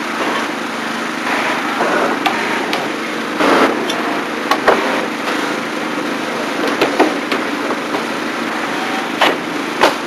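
Construction-site sound: scattered sharp hammer knocks on wood over a steady engine running.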